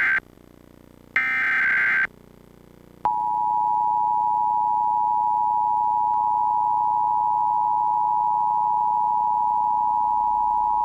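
Emergency Alert System transmission. First come the tail of one and then a whole second screeching digital SAME header burst, each about a second long. After a short pause the EAS attention signal sounds: a steady two-tone electronic alert (853 and 960 Hz together) held for about eight seconds.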